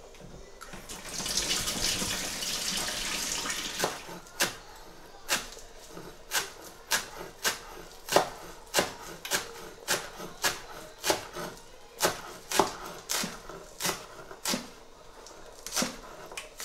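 Tap water running for about three seconds, then a large kitchen knife chopping fresh coriander on a wooden chopping board in quick, even strokes, about two a second.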